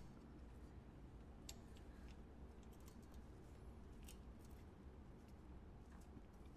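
Near silence: low room tone with a few faint, light clicks.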